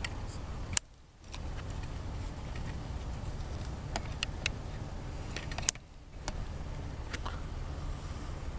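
Outdoor open-microphone noise on a handheld camera: a low steady rumble with scattered sharp handling clicks. Two loud clicks, about a second in and just before six seconds, are each followed by a brief dropout lasting about a third of a second.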